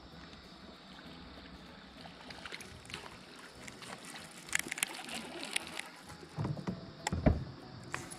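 Water lapping against a small aluminium boat over a steady hiss, with scattered light clicks and a few dull knocks near the end.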